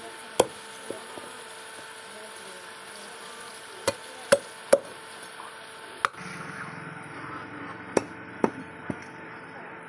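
A knife chopping into a fish on a board: sharp separate strikes, one near the start, three in quick succession about four seconds in, one at about six seconds and three more near the end.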